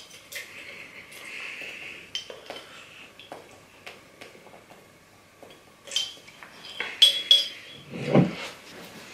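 Close-miked eating sounds: small mouth clicks and chewing, then the glass of a mason drinking jar clinking a few times, and a single deeper knock near the end as the glass jar is set down on the table.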